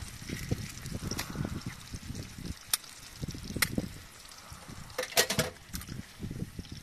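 Eggs and sausage slices sizzling in a frying pan on a portable gas stove, with a few sharp clicks; the loudest is a quick cluster about five seconds in.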